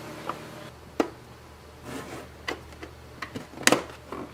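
Scattered sharp clicks and light scrapes of a razor blade prying up and pulling off the bottom of an Apple AirPort Extreme router's plastic case, the loudest click about three and a half seconds in.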